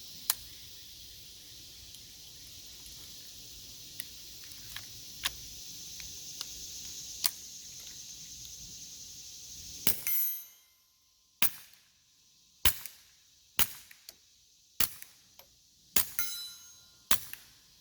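Keltec CP33 .22 LR pistol firing a string of sharp single shots, each with a short ringing tail. One shot comes just after the start and a few fainter cracks follow. About seven shots come roughly a second apart in the second half.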